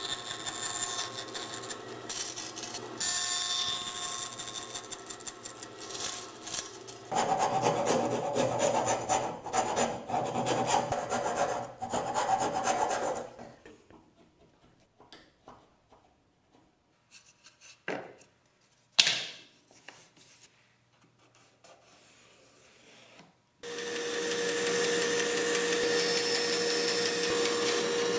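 Bandsaw cutting walnut stock, loud for the first dozen seconds or so. Then a quiet stretch with a few short, sharp strokes of a hand tool worked on the wood's edge. About 23 seconds in the bandsaw starts up again and runs steadily with a constant hum.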